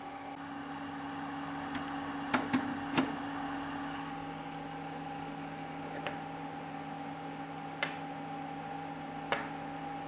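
Sharp plastic clicks and taps from handling a small Align T-Rex 100 Li-Po battery charger and its battery: a quick cluster of three a little over two seconds in, then three single clicks spaced through the rest. Under them runs a steady hum with a few held tones.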